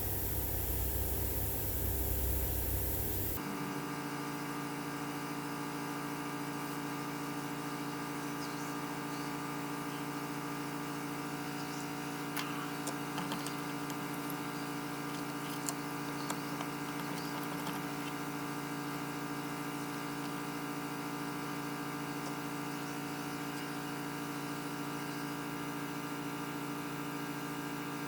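A steady electrical hum made of several fixed tones, with a few faint clicks partway through. It follows a short, rougher rumbling noise that cuts off abruptly about three seconds in.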